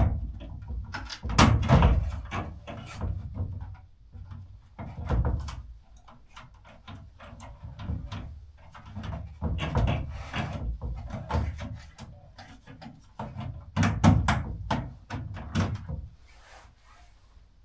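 Irregular knocks, clicks and rattles of hands and tools working on a loose ceiling light fixture, with louder knocks several times.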